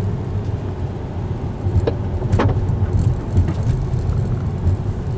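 Vehicle driving along a road: a steady, pulsing low engine and road rumble, with two brief sharp clicks or rattles about two seconds in.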